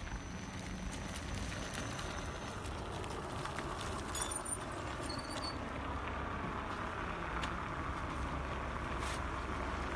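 Steady outdoor background noise with a low rumble, growing slightly louder toward the end, and a few faint high chirps about four to five seconds in.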